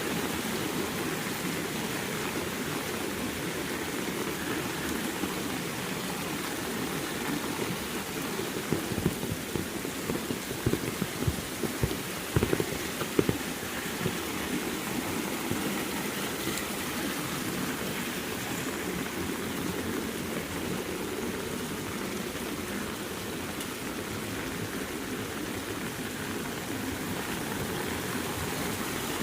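Heavy rain falling steadily, with a cluster of sharper, louder spatters or knocks about nine to thirteen seconds in.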